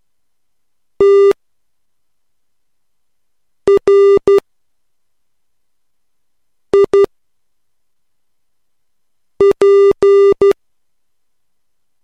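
Morse code practice tone keyed at slow Farnsworth-style spacing, with short dits and longer dahs on one steady buzzy pitch. Four characters are sent with long gaps between them: dah (T), di-dah-dit (R), di-dit (I) and di-dah-dah-dit (P), spelling TRIP.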